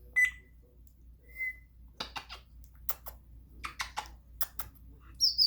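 African grey parrot giving a short whistle, then a fainter one, followed by a run of sharp clicks and a loud high squeak near the end.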